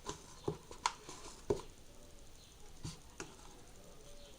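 Soft sticky squelches and pats of oiled hands kneading a very soft flour-based slime, about six short ones in a few seconds.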